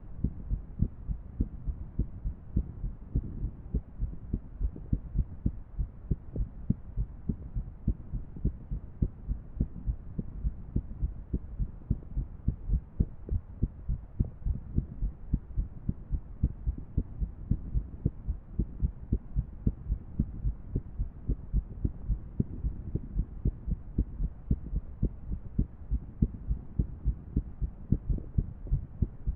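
A woman's heartbeat recorded close up: a continuous run of low, dull thuds, about two to three a second, in an irregular rhythm, over a faint steady background hum.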